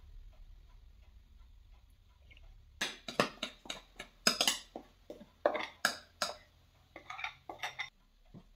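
A metal utensil clinking and scraping against a glass jar, scraping out thick preferment. A quick, irregular run of sharp strikes starts about three seconds in and stops near the end.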